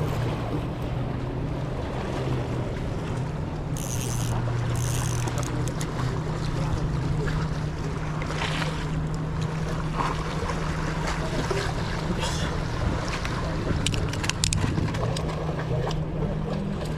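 A steady low engine drone, boat-like, over wind noise on the microphone, with two brief high hisses about four and five seconds in.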